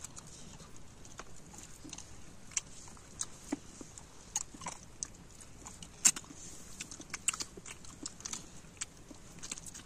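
People eating with their hands from metal plates: chewing and crunching, with scattered sharp clicks over a faint hiss, the loudest about six seconds in.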